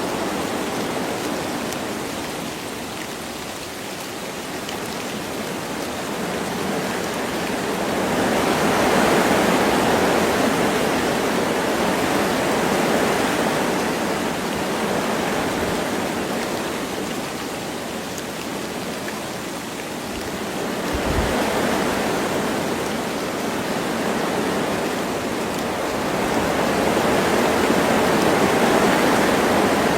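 Wind gusting through forest trees with light rain, a steady rushing that swells and eases in slow surges.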